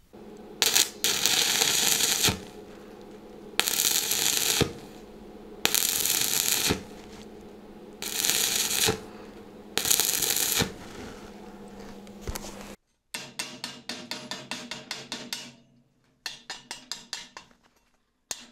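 Stick (electrode) arc welding a nut to a steel profile tube in a vertical-up seam, laid in five short bursts of crackling arc about a second apart, with a low hum between them. After the last burst comes a quick run of light metallic taps.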